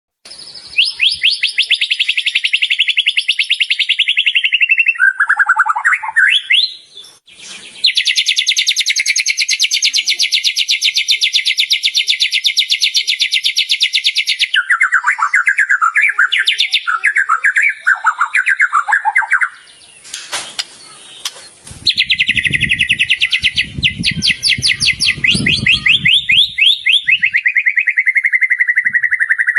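White-rumped shama (murai batu) in full song, alternating long, very rapid trills with shorter warbled phrases, the mimicked 'isian' of other birds' songs that shama keepers prize. A low rumble sits under the song for a few seconds past the middle.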